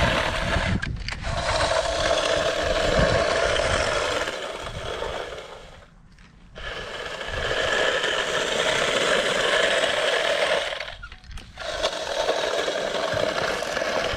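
A small motorised tool or engine running steadily at a high, even speed, easing off briefly three times.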